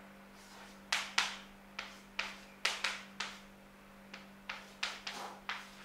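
Chalk tapping and scraping on a chalkboard as digits are written: about a dozen sharp, irregular taps, each trailing off briefly.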